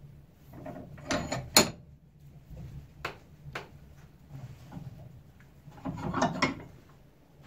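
A rusty steel blacksmith's hammer head knocking and scraping against the steel jaws of a bench vice as it is set in place: a few sharp metal clinks about a second in, the sharpest at about one and a half seconds, two single clicks around three seconds, and a longer scraping rattle near six seconds.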